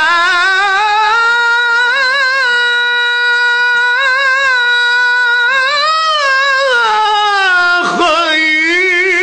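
A man singing solo in Egyptian religious inshad style, holding one long, high, ornamented melismatic note with wavering vibrato on a single breath, with no accompaniment. About eight seconds in, the pitch breaks sharply downward and the line settles onto a lower note.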